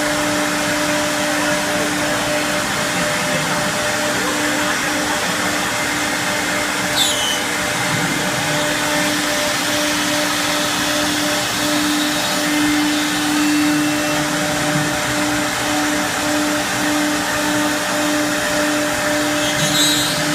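Three-head CNC wood router running: a steady whine over a continuous rushing noise, with a brief falling squeak about seven seconds in and another near the end.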